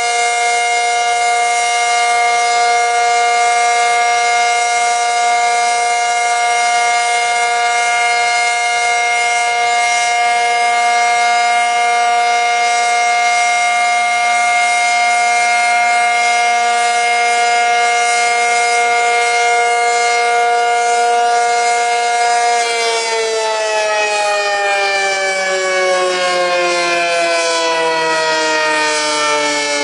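ACA Cyclone 125 dual-tone outdoor warning siren sounding a steady alert tone, a loud two-note chord held level. About 22 seconds in, the power cuts and the pitch slides down as the siren winds down.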